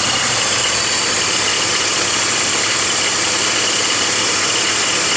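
BMW 325i (E46) inline-six engine idling, with a steady rattle from a worn idler (deflection) pulley on the accessory belt drive.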